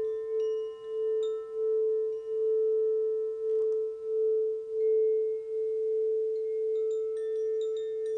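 Crystal singing bowl sounding one steady ringing tone that swells and fades in a slow pulse. Higher bell-like chime notes are struck over it a few times near the start and again near the end, each ringing on.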